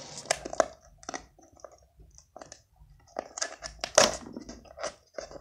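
Hands handling packaging at close range: irregular crinkles, crackles and small clicks, with one sharp louder knock about four seconds in.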